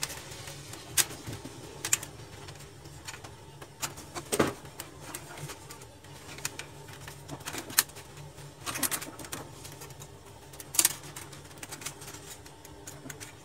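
Irregular clicks and knocks from an HP LaserJet P2055 printer's parts being handled as it is taken apart, with a sharper knock about four seconds in and a few more in the second half.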